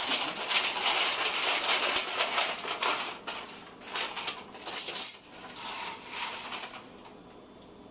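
Handling sounds while preparing homemade popcorn: a paper bag crinkling, and hard popcorn kernels rattling and clinking against a measuring spoon. The sounds are densest for the first few seconds, then come in scattered bursts that die away near the end.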